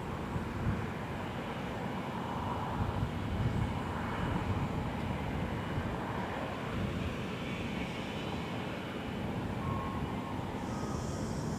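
Steady low rumble of heavy machinery and vehicle engines on a construction site, with a few short high beeps from a reversing alarm near the end.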